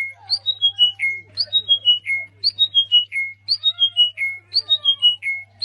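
Bird call: a quick falling run of five or six short whistled notes, repeated about once a second, over a steady low hum.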